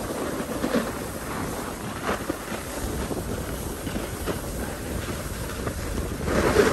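Snowboards sliding and scraping over packed snow at speed, with wind buffeting the microphone: a steady rushing rumble with a few short harsher scrapes.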